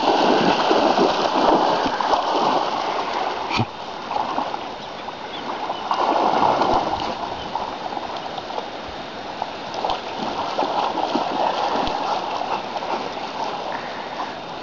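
A dog splashing through water as it bounds into a river, loudest in the first few seconds, then a steadier rush and slosh of water as it swims out.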